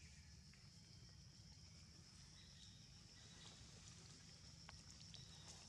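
Near silence: faint forest background, a steady high hiss over a low rumble, with a few faint ticks.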